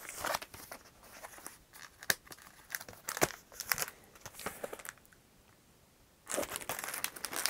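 Plastic-wrapped laserdisc jackets being handled: crinkling and rustling plastic with sharp taps and slides of the cardboard sleeves. After a pause of about a second, a denser run of crinkling comes near the end.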